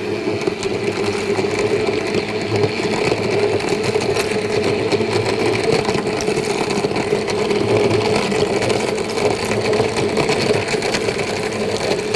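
Electric countertop blender running steadily at full speed, crushing ice into tamarind juice to blend it into an icy smoothie.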